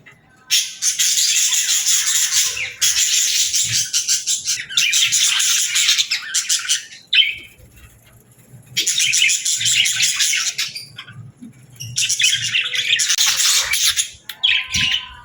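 Budgerigar warbling: a rapid, dense chatter of chirps and scratchy notes in bouts of a few seconds, with short pauses between them.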